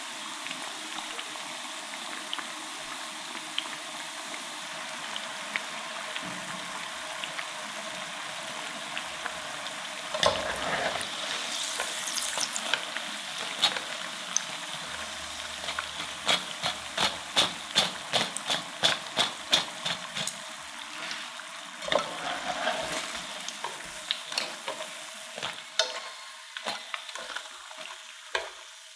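Potato cakes frying in a pan of cooking oil: a steady sizzle. From about ten seconds in, many sharp crackles and pops sound over it.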